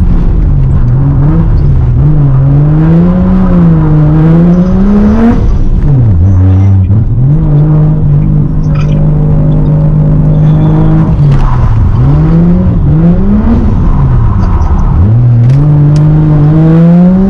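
Car engine revved hard during a skid, wheels spinning. The revs climb and drop repeatedly, hold steady high for several seconds in the middle, and fall away sharply three times before climbing again near the end.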